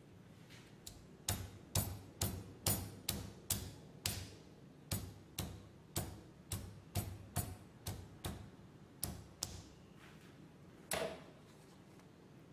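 Stone pestle knocking in a stone mortar, lightly crushing Thai hot chilies: a run of sharp knocks about two a second, then one last, louder knock with a short ring near the end.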